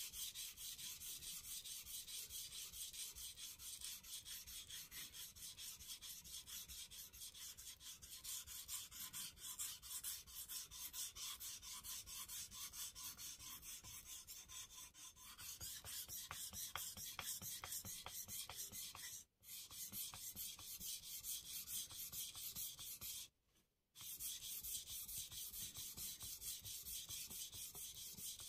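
Steel deba knife blade rubbed back and forth on a Shapton Glass 320-grit whetstone, in rapid, even strokes. There are two short breaks in the last third. At this point the fresh stone is not yet releasing abrasive particles and still leaves a mirror polish.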